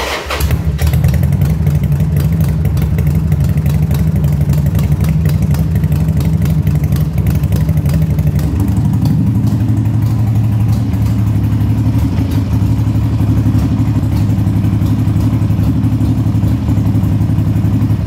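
Harley-Davidson Sportster 1200's air-cooled V-twin engine starting and running steadily, its note shifting lower about eight and a half seconds in, then cut off at the end, just after a new choke cable has been fitted.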